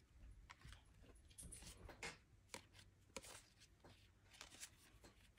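Faint flicking and sliding of Topps baseball trading cards being thumbed through one by one: a scatter of light, irregular ticks.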